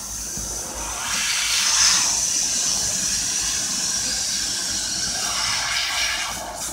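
750 W fiber laser cutter cutting 1–3 mm stainless steel sheet: a steady hiss from the cutting head's assist gas jet and the cut. The hiss swells about a second in and eases off near the end.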